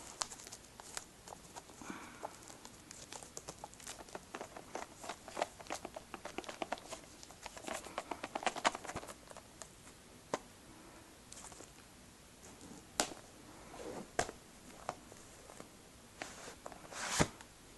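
Hands struggling to open the packaging of a Blu-ray case: irregular crinkles, scratches and small clicks, with a few sharper knocks about ten and thirteen seconds in and a louder one near the end.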